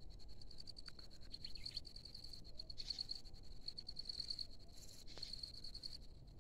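Insects trilling in a steady, high, fast-pulsing chorus.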